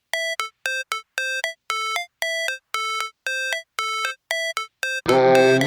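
Background music: a string of short, clean synth notes in a chime-like melody, about three a second, with a full electronic track and bass coming in near the end.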